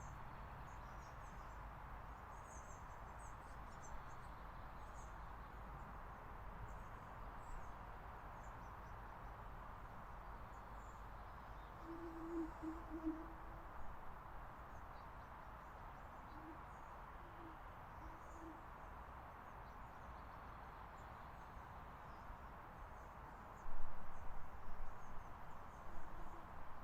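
Outdoor ambience with a low, hoot-like bird call repeated in short phrases about twelve seconds in and again about sixteen to eighteen seconds in, over faint high chirps and a steady low hum. Near the end come several louder bumps.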